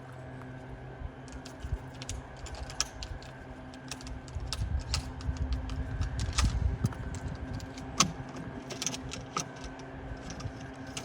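Electric golf cart running with a steady hum, while golf clubs click and rattle in their bag. A low wind rumble on the microphone swells in the middle.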